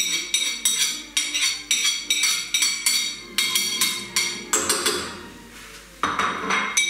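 A metal utensil tapping and scraping on a plate, knocking chopped garlic off into a frying pan: a quick run of sharp clinks, about three a second, that stops about four and a half seconds in, with a shorter burst of noise near the end.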